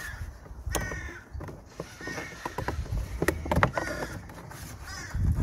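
Repeated bird calls, with a few sharp clicks about a third of the way in and again around the middle as the plastic clips holding the engine's air intake component are pried loose.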